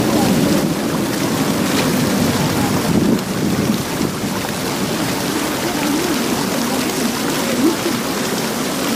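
Fountain water splashing steadily into its pool, a continuous even rush.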